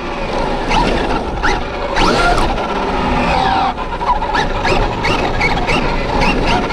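Traxxas Rustler 4x4 RC truck's brushless motor, driven by a Castle Sidewinder 4 speed controller on a 3S LiPo, whining up and down in pitch as the throttle is worked, over steady tyre noise on asphalt. Near the end the whine comes as a quick run of short rising chirps, about two a second.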